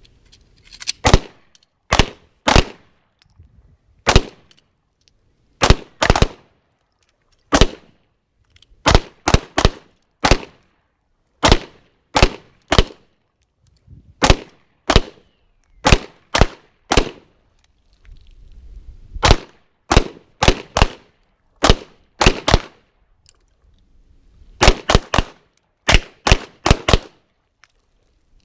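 Pistol shots from more than one shooter on a firing line, some thirty in all, sharp single reports at an irregular pace and often in quick pairs.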